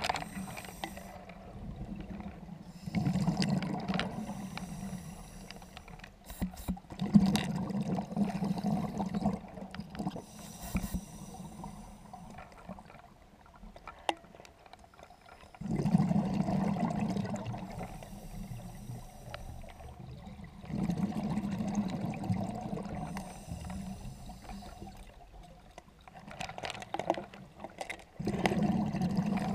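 Scuba diver's regulator heard underwater: several bursts of exhaled bubbles rumbling and gurgling a few seconds apart, with quieter stretches between breaths and a few light clicks.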